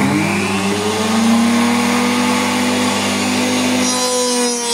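Table-mounted 1.5 kW router motor just switched on: a whine that rises in pitch over the first half-second as it spins up, then runs steadily at speed with no cut yet.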